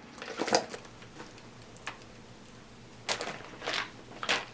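Packaging being handled: several short rustles and scuffs of foam sheeting, paper and cardboard box parts, the last three coming close together near the end.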